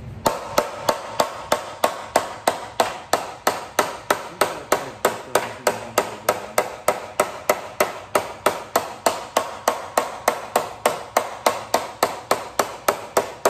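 Hand hammer striking the edge of an aluminium sheet panel in steady, evenly spaced blows, about three a second, each with a short metallic ring. The blows pull the sheet's edge over a form to turn a flange.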